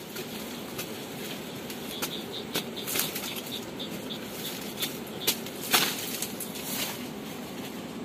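Dry cardamom leaves and stalks rustling, with several sharp snaps and crackles, as hands work through the base of the plants picking pods. The loudest snap comes about two-thirds of the way in. An insect chirps faintly, about four times a second, around the middle.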